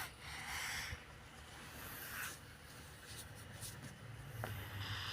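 A sleeping person snoring: noisy breaths come about every two seconds, and a low, buzzing snore follows near the end.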